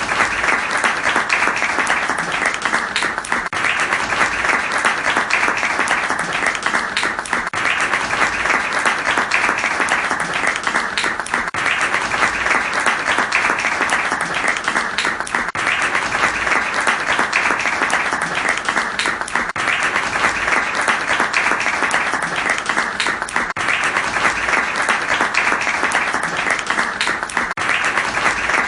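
Applause from many hands clapping: a steady, dense wash of claps with no letting up. It has faint dips about every four seconds, as from a short recording looped.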